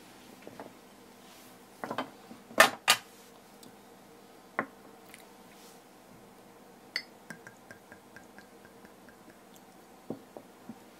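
Ceramic sake cup and sake flask being set down on a wooden counter: a series of sharp knocks, the loudest two in quick succession about two and a half seconds in. About seven seconds in, another knock is followed by a run of small ringing ticks that die away.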